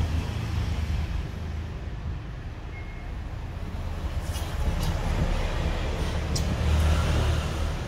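Steady low rumbling noise, with a few short crunches as a man chews crisp blanched Chinese broccoli between about four and six and a half seconds in.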